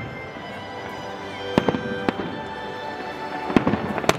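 Aerial fireworks bursting overhead: about four sharp bangs, two around a second and a half in and two more near the end.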